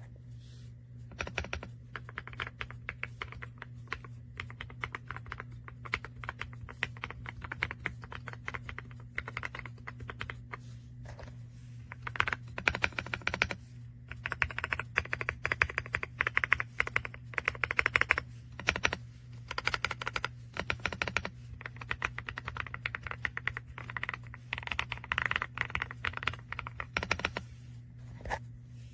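Typing on a YUNZII C75 75% mechanical keyboard with Candy linear switches: a dense clatter of keystrokes in uneven runs, faster and louder in several stretches, over a steady low hum.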